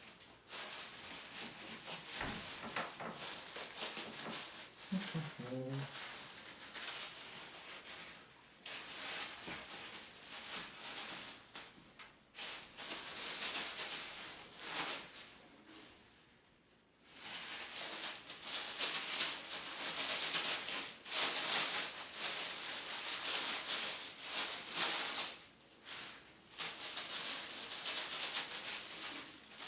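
Wrapping paper and packing material rustling, crinkling and tearing as a wrapped package is unwrapped by hand, with a short lull about two-thirds of the way through.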